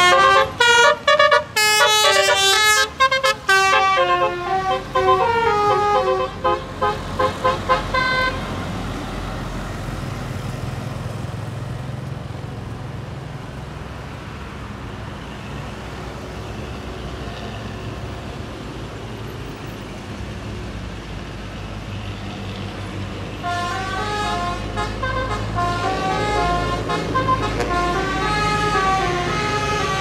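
Basuri musical bus horn (telolet) playing a fast tune of stepping notes for about the first eight seconds, then the low rumble of bus engines and traffic on the climb. The horn tune starts again about 23 seconds in.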